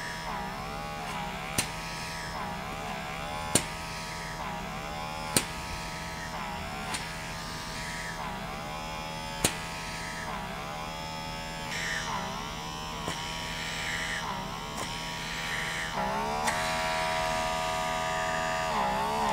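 Lumina DermaPeel handheld suction pore cleaner running at level 4, its strongest setting: a steady motor whine whose pitch keeps dipping and recovering as the suction tip is drawn across the skin. A handful of sharp clicks come every few seconds.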